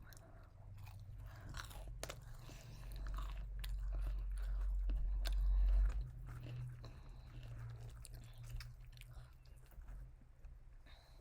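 Close-up crunching and chewing of KFC fried food, with many small crackles. A loud low rumble swells in the middle and cuts off suddenly about six seconds in.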